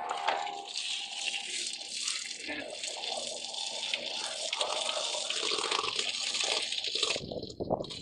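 Water gushing from the inlet of a Panasonic NA-FS85A7 top-load washing machine into the drum onto the clothes: the tub filling at the start of a wash cycle. It is a steady rush until about seven seconds in, when it turns rougher and uneven.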